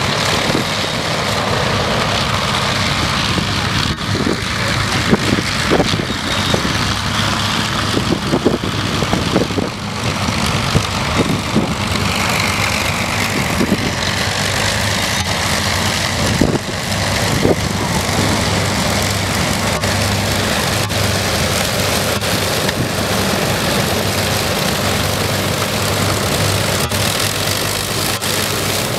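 Avro Lancaster's four Merlin V12 engines running at taxi power, a loud steady drone as the bomber taxis past on grass. A few short knocks sound in the first half.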